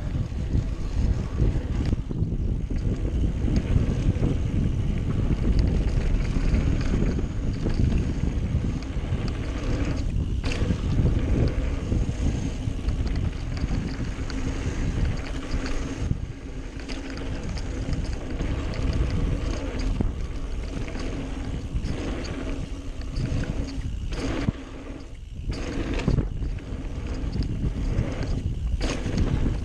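Wind buffeting the microphone and tyre rumble from a mountain bike riding fast down a dirt trail, with a few sharp knocks from the bike over bumps. The noise eases briefly about two-thirds of the way through.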